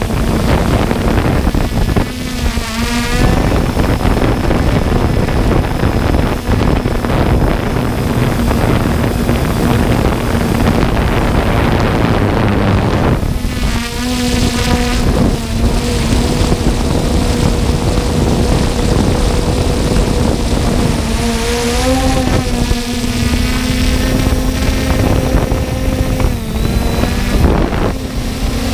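3DR Solo quadcopter's motors and propellers humming on a steady note, heard from the GoPro riding on the drone, under heavy wind rush on the microphone. The pitch wavers and briefly rises about two-thirds of the way through.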